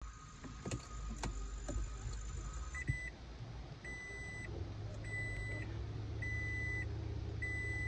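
Toyota Prius's in-cabin reverse warning beeper sounding repeated, evenly spaced single-tone beeps, each about half a second long, a little over one per second, starting about three seconds in after a few sharp clicks, over a low steady hum.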